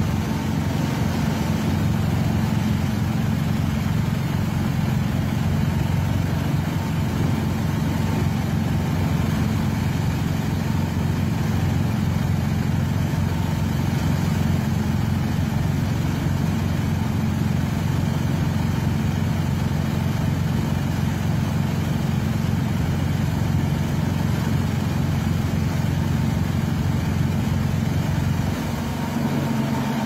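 A LaRue D97 loader-mounted snowblower and its wheel loader run steadily under load, a low engine drone, as the rotor churns and throws slush water.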